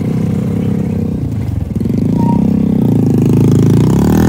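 Bajaj CT 100's small single-cylinder four-stroke engine running under load as the motorcycle rides along a rough dirt track. It gets louder from about two seconds in, and its pitch rises near the end.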